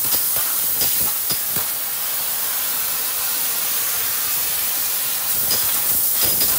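Laser cutting machine cutting sheet metal: a steady, loud hiss of the assist gas jet at the cutting head, with scattered sharp clicks, several in the first second and a half and again near the end.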